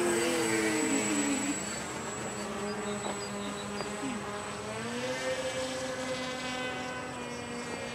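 Radio-controlled Canadair CL-84 tilt-wing model flying overhead, its propellers giving a buzzing drone. The pitch wavers, dips about four seconds in, then rises and holds steady.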